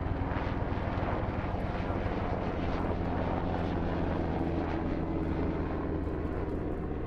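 Military helicopter flying overhead: a steady drone of rotor and turbine with a low pitched hum.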